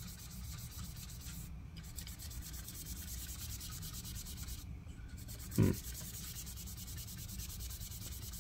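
Cloth being rubbed over a laptop battery pack to wipe off liquid-spill residue: a faint, steady rubbing. One short, louder sound comes a little past halfway.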